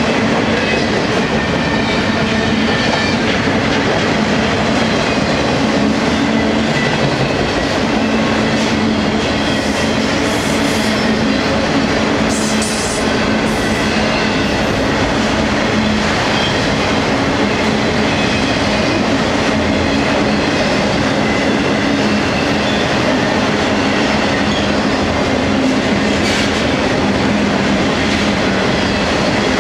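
Freight train flatcars and autorack cars rolling past, a steady, loud noise of steel wheels running on the rails.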